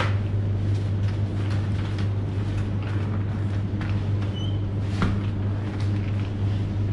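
Steady low hum of refrigerated glass-door display coolers, with a sharp click at the start and another about five seconds in as a cooler door is opened and handled.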